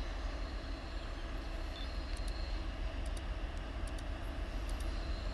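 Approaching diesel freight locomotives, a steady low rumble of their engines.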